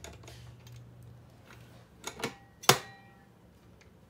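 A couple of light clicks, then one sharp metallic clack with a short ring, a little under three seconds in, as a monitor stand's neck and its metal mounting plate are handled against the plastic back of the monitor.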